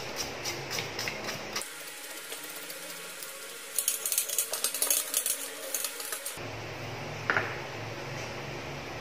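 Bristle brush scrubbing dust off a desktop power supply's circuit board and metal case: a few seconds of rapid scratchy strokes in the middle, with light clicks of the metal case being handled before and after, and one brief sharp tap near the end.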